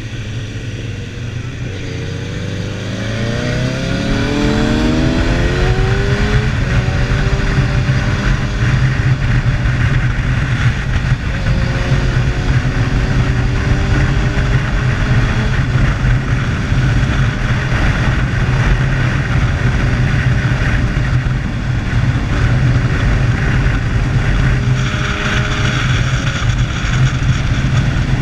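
Motorcycle engine accelerating hard out of a hairpin, its revs climbing a few seconds in, then running steadily as the bike cruises up the pass road. Wind rushes over the microphone throughout and grows stronger briefly near the end.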